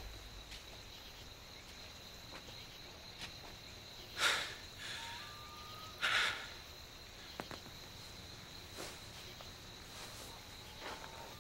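Quiet, tense film ambience: a faint steady high-pitched tone underneath, broken by two short, sharp noisy rushes about four and six seconds in.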